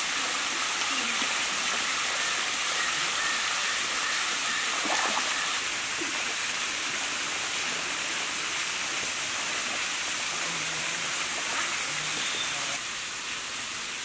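Steady rush of a waterfall and the stream water below it, an even hiss that drops a little near the end.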